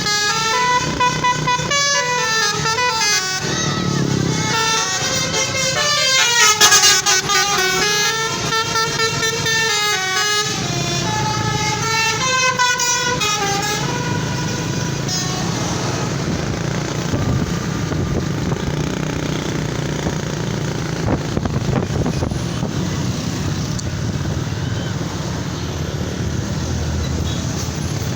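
Basuri multi-tone 'telolet' bus air horn playing a tune in stepped notes for about the first fourteen seconds, then stopping. After that there is only the steady noise of engines and traffic.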